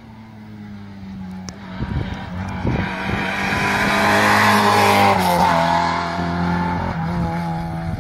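Rally car passing at speed, its engine held at high revs. It grows louder as it approaches, drops in pitch as it goes by about five seconds in, then fades away.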